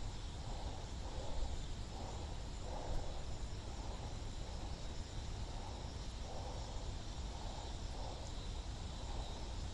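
Quiet night-time outdoor ambience: faint steady insect chirring over a low rumble.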